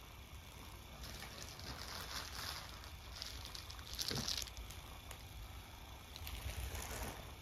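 Electric cat toy's whirling ribbon-and-feather wand swishing and rustling in uneven bursts, loudest about four seconds in.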